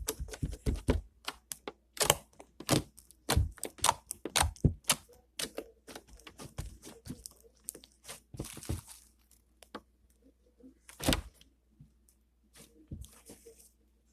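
Fingers poking and squishing bead-filled slime: a quick, irregular run of sharp clicks and pops that thins out after about six seconds, with one louder pop near eleven seconds.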